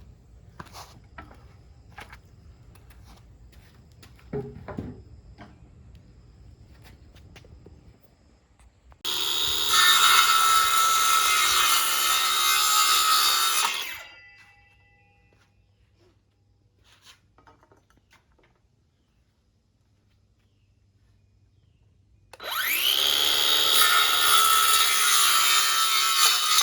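Power saw trimming the ends off a 4x4 wooden post: two cuts of about five seconds each, the second starting with the blade spinning up, after a few light knocks and clicks of handling the wood.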